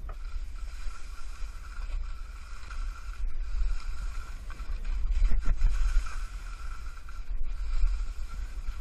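Wind rumbling on the microphone of a camera carried by a skier on the way down, with skis hissing over the snow; the rumble swells about five seconds in.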